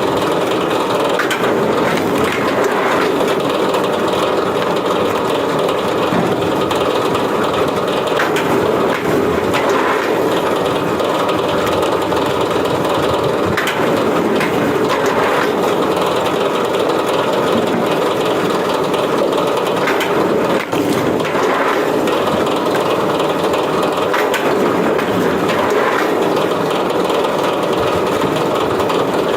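A wood-processing machine running steadily, with wood cracking and splitting every few seconds as logs are worked through it.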